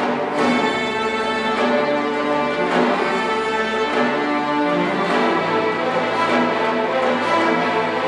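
Youth symphony orchestra playing a classical piece: sustained full chords, with the bass moving to a new note about five seconds in.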